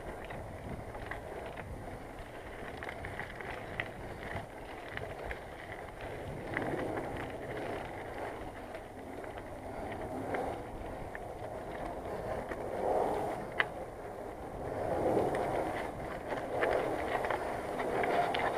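Bicycle being ridden along a path: tyres rolling with small rattles and ticks from the bike, and wind on the microphone. One sharp click stands out about two-thirds of the way through.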